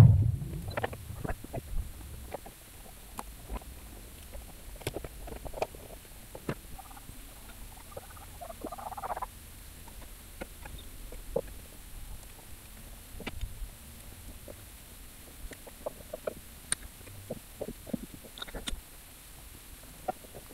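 Hand tools and metal parts being handled while working on a car engine: scattered light clicks and knocks, a heavy thump right at the start, and a short scraping rasp about nine seconds in.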